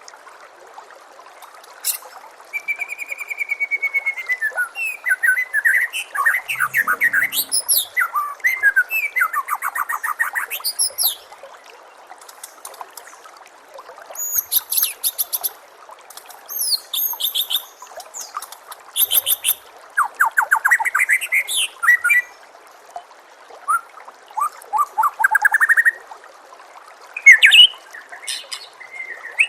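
White-rumped shama singing a long run of varied whistled phrases and rapid trills, in bursts with short pauses, over a steady trickle of running water.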